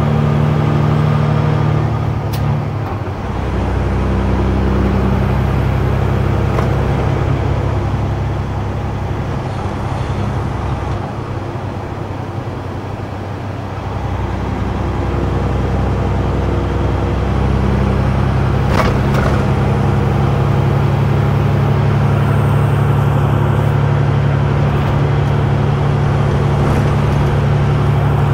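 Semi truck's diesel engine droning steadily inside the cab while driving, running smoothly; the drone quietens for a few seconds in the middle, then builds back up.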